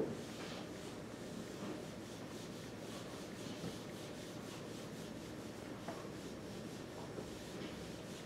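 Whiteboard marker rubbing across a whiteboard as it writes, a run of faint short strokes. A single sharp knock right at the start is the loudest sound.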